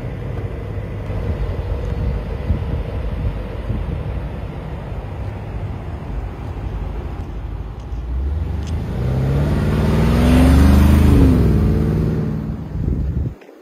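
Armoured Brabus Invicto G-wagon driving, its engine a steady low rumble at first. About eight seconds in it revs up, rising in pitch and growing loudest as it accelerates, then the pitch falls away. The sound cuts off suddenly near the end.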